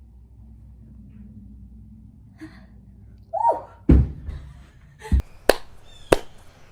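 Low room hum, then a short vocal sound about three seconds in, followed at once by a heavy thump and, a second later, three sharp slaps or knocks, typical of a body and hands hitting the floor during a handstand attempt.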